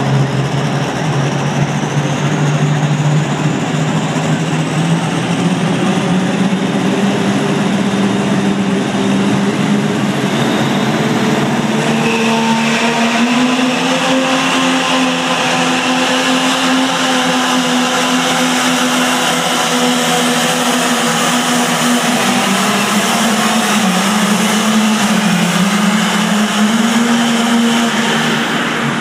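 Pulling tractor's engine running flat out under load as it drags the weight sled down the track. Its pitch climbs and wavers through the pull, with a thin high whine rising over the first several seconds.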